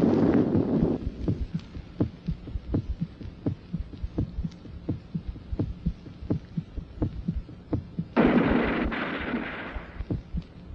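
Heartbeat sound effect, steady low lub-dub thumps repeating a little faster than once a second. A low rushing noise fades out about a second in, and a second swell of rushing noise rises and falls near the end.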